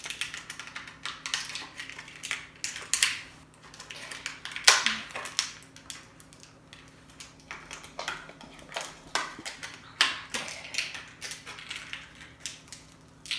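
Toy packaging of plastic and cardboard being handled as a figure is worked out of its box: irregular crinkling, clicks and taps, the loudest snap a little under five seconds in.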